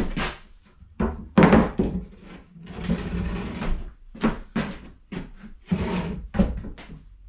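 Homemade wooden balance board knocking irregularly against the floor as someone steps on and balances, with scraping between the knocks.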